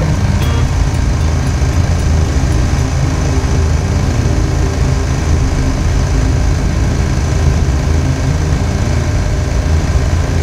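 Motorcycle engine running at a steady speed while riding, with a constant rushing noise over it and no revving or gear changes.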